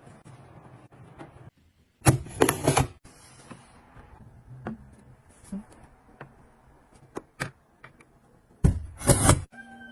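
Household objects being handled: scattered light clicks and taps, with two louder clattering bursts about two seconds in and near the end.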